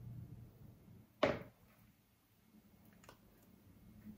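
A single short clack about a second in as a metal ice cream scoop knocks against the batter bowl, over a faint steady low hum.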